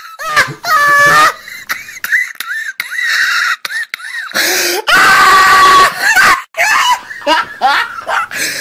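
A person laughing hard and screaming, in loud, high-pitched bursts.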